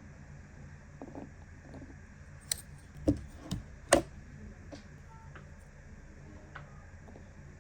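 Small plastic toy pieces being handled and set down: a few sharp clicks and taps, four louder ones close together in the middle, over a low steady hum.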